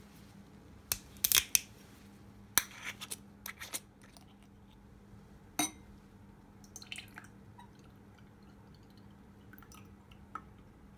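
Aluminium screw cap on a chia seed drink bottle being twisted off, giving a quick run of sharp clicks as the seal breaks and a second group of clicks as it turns free, then a single click. After that, only faint small sounds as the seed-filled drink is poured into a wine glass.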